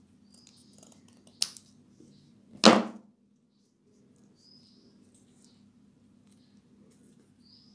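Scissors clicking shut once, then about a second later a louder single knock as they are set down on the tabletop.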